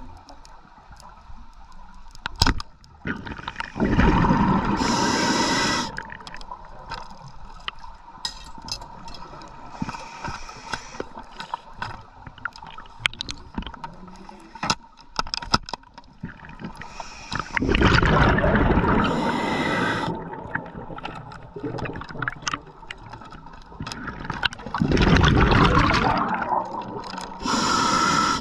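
Underwater reef sound: a constant crackle of sharp clicks, broken three times by loud, rushing bursts of bubbling water noise about two seconds long, a few seconds in, about two-thirds through, and near the end.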